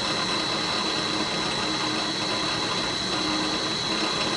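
Drill press driven by a new electric motor through a variable frequency drive, running steadily at speed with a steady high-pitched whine over the motor and belt noise.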